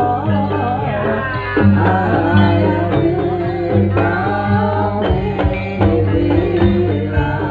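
Javanese gamelan music accompanying a jaranan horse dance: a singer's wavering melody over held low gong-like tones, with drum strokes.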